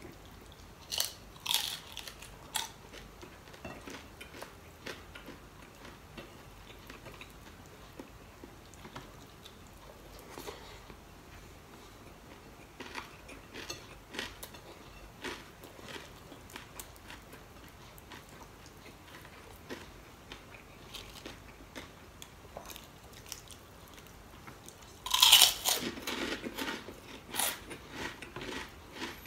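A person biting and chewing crispy fried dried fish with mouth noises, in short scattered crunches with pauses between them. A louder burst of crunching comes near the end.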